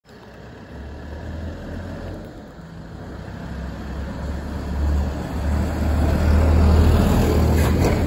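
A low, steady rumble with a noisy hiss above it, growing louder over several seconds.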